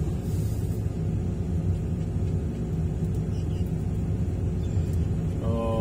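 Hydraulic excavator's diesel engine running with a steady low rumble.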